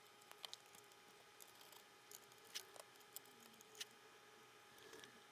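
Near silence, with a few faint, scattered small clicks and taps from projector parts and a screwdriver being handled during reassembly.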